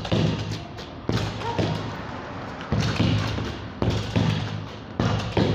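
Soccer ball being kicked and rebounding off a wall and a concrete floor: a series of hard thuds, roughly one a second, each ringing on in a bare room.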